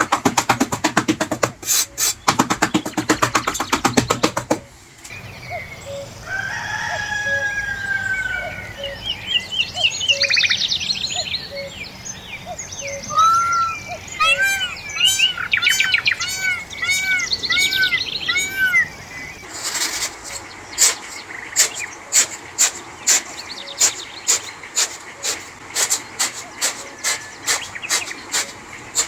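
Birds chirping, with repeated arched chirps and some longer gliding calls, between two stretches of rapid, evenly spaced clicking or tapping.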